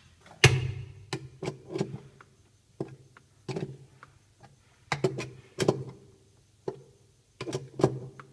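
A metal tool knocking at the centre hub in the bottom of a Sanyo top-loading washing machine's drum. About a dozen irregular knocks, sometimes two or three close together, each with a short ring.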